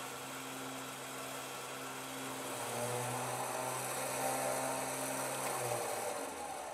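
Harbor Freight Badlands Apex 12,000 lb electric winch running steadily as it spools in its synthetic line, stopping about six seconds in.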